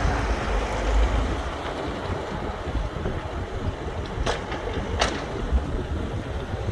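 Wind buffeting the microphone as a gusty low rumble, with two short sharp clicks about four and five seconds in.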